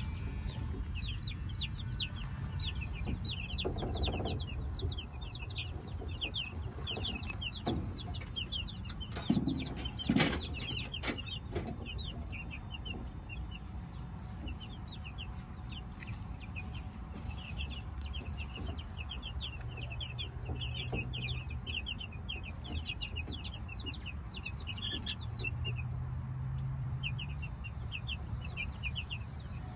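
A flock of young chicks peeping continuously: many short, high, falling chirps, several birds at once. A few sharp knocks about ten seconds in.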